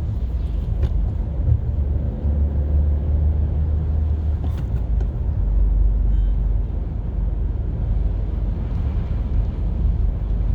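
Car driving along, a steady low engine and road rumble whose pitch shifts a couple of times as the engine speed changes.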